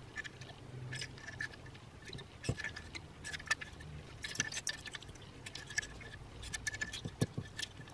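Modified tubular tile-cutter pliers squeezed again and again along a thin metal strip, crimping small tucks into it to shrink its length: faint, irregular metallic clicks as the jaws close and the strip is worked through.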